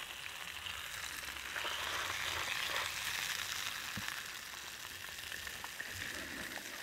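Two whole whitefish frying in hot oil in a pan on a camping spirit stove: a steady sizzle that grows louder for a couple of seconds in the middle.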